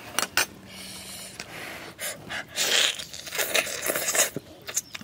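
Close-up eating sounds: a man biting, chewing and sucking cooked chicken meat off the bone, with short wet smacks and noisy breaths through the nose.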